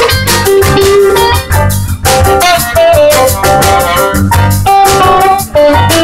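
A jazz band playing live: a melodic lead line over a drum kit and bass.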